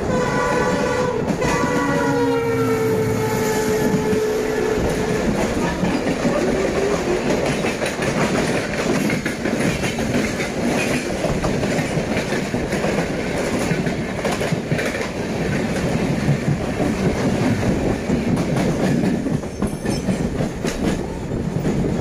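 A WDP-4D diesel locomotive's horn blasts as the Kamrup Express passes, falling in pitch and ending about five seconds in. It is followed by the steady rush and clickety-clack of the express train's coaches speeding past close by.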